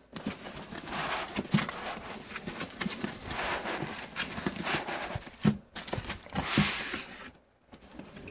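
Cardboard scraping and rustling as the packed contents are slid up out of a laptop's cardboard box, with scattered soft knocks; it stops about seven seconds in.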